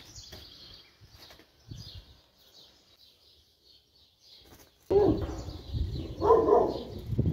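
Small birds chirping faintly at dawn. About five seconds in, a much louder low rumbling noise comes in suddenly, with a short voice-like sound in it about a second later.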